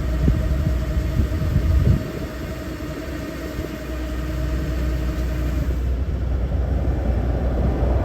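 Engine of a farm machine running steadily with a low rumble, easing slightly about two seconds in.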